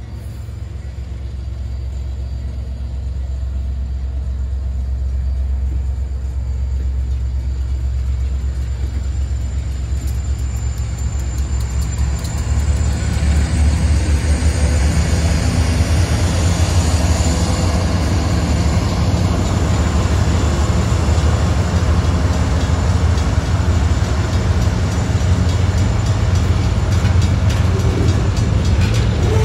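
Union Pacific freight train's diesel locomotives rumbling slowly past at close range, followed by the freight cars' wheels rolling over the rails. It builds steadily and becomes a louder, denser rolling noise about twelve seconds in.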